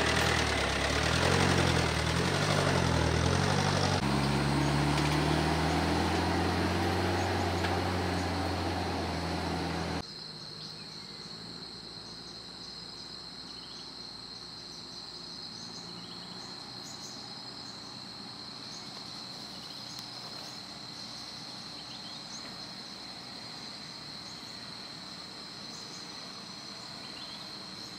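An off-road 4x4 vehicle's engine running, its pitch shifting a few times. It cuts off abruptly about ten seconds in to a steady, high insect drone with scattered short chirps.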